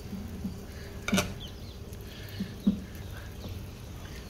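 Bondas deep-frying in a pan of oil with a faint sizzle, broken by a few short sharp sounds about a second apart.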